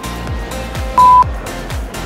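Background music with a steady beat, about two and a half beats a second. About a second in, a short, loud, single-pitched beep cuts in over it.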